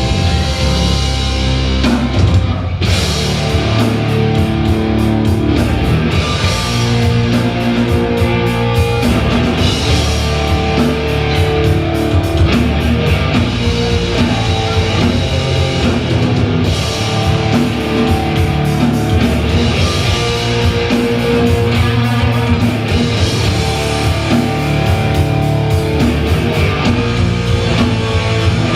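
Live rock band playing loudly: two electric guitars, bass guitar and a drum kit pounding out a fast, driving song.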